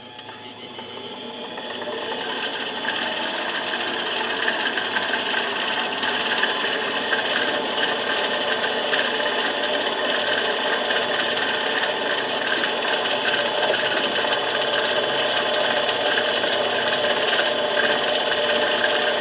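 Small benchtop metal lathe spinning a titanium ring while a handheld rotary tool sands its surface: a steady abrasive rubbing hiss over the hum of the machines, building up over the first two seconds and then holding even.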